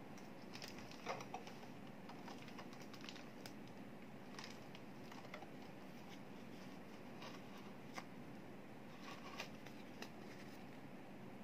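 Scattered light clicks, taps and rustles of hands handling a thermal label printer, its label paper and plastic wrap. There is no motor noise, only a few sharper clicks spread through.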